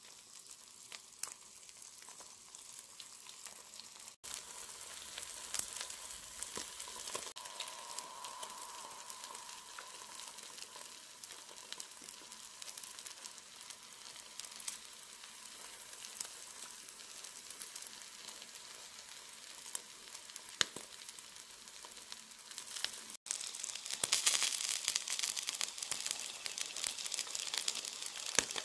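Eggs frying in a pan: a steady sizzle with many small crackles and pops. It breaks off briefly twice and grows louder for the last few seconds.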